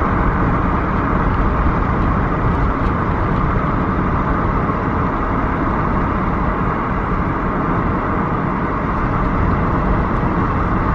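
Car travelling at highway speed: steady road and wind noise.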